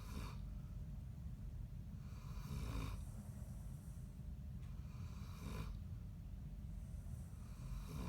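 Sleeping dog snoring, a snore roughly every two and a half to three seconds, over a steady low hum.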